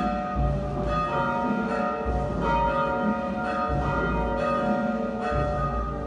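Church bells tolling a requiem knell for the dead: several bells of different pitch are struck one after another about once a second or so, their tones ringing on over one another.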